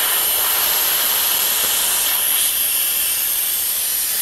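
Steady hiss of compressed air from an air-compressor line, blowing up a fishing buoy.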